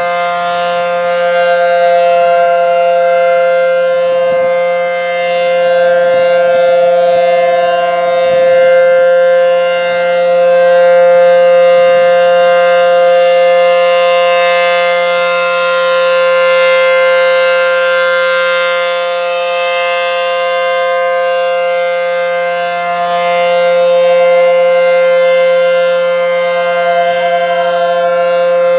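ACA Howler three-phase outdoor warning siren sounding a steady alert at full speed: a loud, sustained chord held at one pitch that swells and fades in loudness every few seconds.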